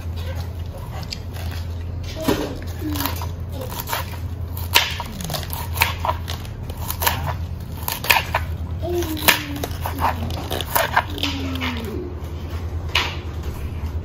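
Kitchen knife chopping cabbage on a wooden cutting board: irregular sharp taps of the blade striking the board, over a steady low hum.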